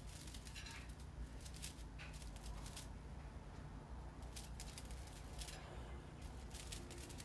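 Cockatoo's beak crunching the dry fibres of a crunchy hamster chew ball: faint, dry crackling clicks in scattered clusters, over a steady low hum.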